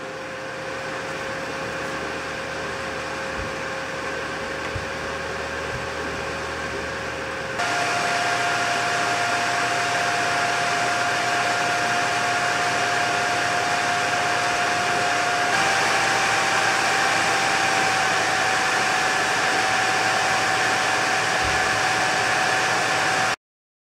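AMD FX-8320's stock CPU cooler fan running: a steady whoosh with a high whine. It steps up louder and higher in pitch about eight seconds in, and a little higher again about sixteen seconds in, as the fan speeds up with the CPU temperature rising from 50 to 75 °C under load.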